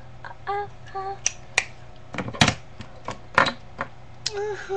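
Irregular sharp clicks and knocks, the loudest around the middle, with a few short vocal notes from a girl near the start and again at the end.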